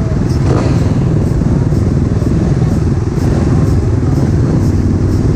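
Motocross bike engines idling steadily, the nearest one loud and close with a rapid, even firing beat, others running around it.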